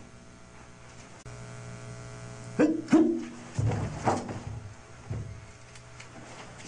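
Karate one-step sparring: two sharp shouts (kiai) a little over two and a half seconds in, then several dull thumps of stamping feet and strikes. A low steady hum runs underneath.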